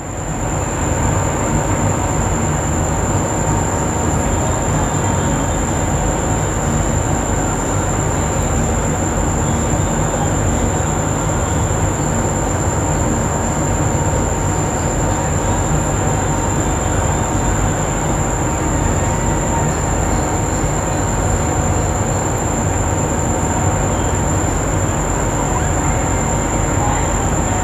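Hot air rework station blowing a steady stream of hot air, coming on at the start and holding an even rushing hiss. It is heating a suspect over-voltage-protection IC on a phone's circuit board to reflow its solder and reseat the chip.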